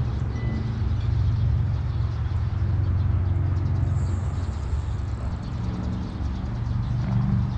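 Steady low drone of a running motor, rising and falling slightly in strength.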